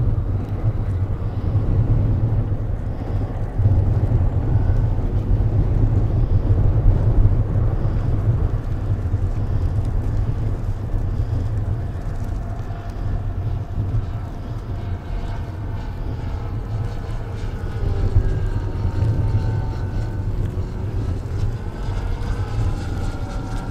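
Propeller and motor of a large radio-controlled scale model Dewoitine D.26 droning as it flies overhead. In the second half its pitch glides up and down, over a steady low rumble.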